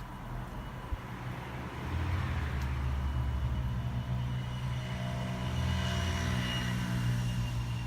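A motor vehicle's engine running steadily with a low hum that grows louder about two seconds in and eases off near the end, as of a vehicle passing or idling close by.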